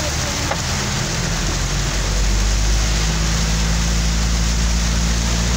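Heavy rain on a car's roof and windscreen heard from inside the cabin, with the low steady hum of the car driving, which grows a little stronger about two seconds in.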